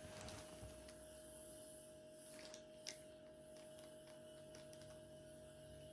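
Near silence: room tone with a faint steady tone and a few faint clicks.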